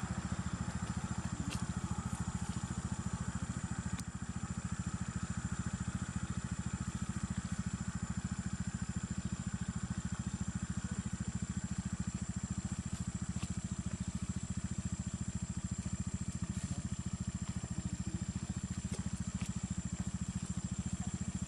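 An engine idling steadily: a low, even drone with a rapid regular pulse, with a thin steady high-pitched whine above it.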